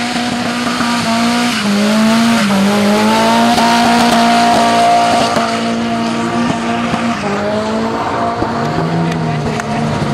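Car doing a burnout: its engine held at steady high revs with small dips, over the squeal and hiss of spinning tyres. Near the end the revs drop and then climb again.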